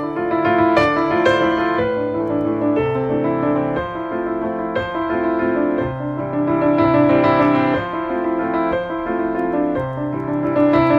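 Piano music for the routine: a flowing run of notes over bass notes that change about every two seconds.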